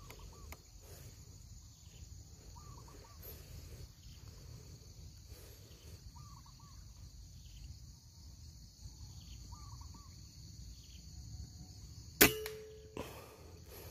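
A single shot from a PCP air rifle about twelve seconds in: one sharp crack, followed by a short ringing tone. Before it, a steady high insect drone and a bird's short call repeated every second or two.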